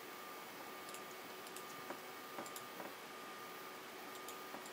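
Faint, scattered, irregular clicks from a computer keyboard and mouse being worked, over a steady microphone hiss with a thin, faint steady whine.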